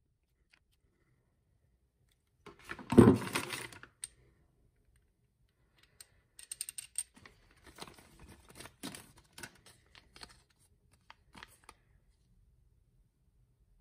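Handling noise from small brass and steel foam-lance fittings and clear plastic parts bags. There is a short rustling clatter about three seconds in, then several seconds of small clicks and crinkles.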